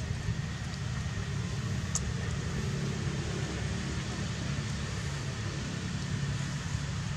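Steady low rumble of motor traffic, with one faint tick about two seconds in.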